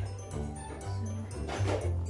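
Background music with a steady bass line and short high notes.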